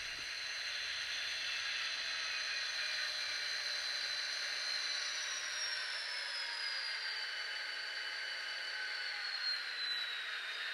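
Model diesel locomotive in Chessie System C&O paint running slowly along the track: a steady whir with a high whine that falls in pitch over the second half as it slows.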